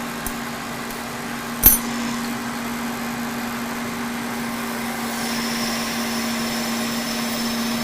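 Kearney & Trecker 2HL horizontal mill, set up as a lathe, running steadily with an even hum while a turning cut is taken. A single sharp click comes about a second and a half in, and a faint high whine joins about five seconds in.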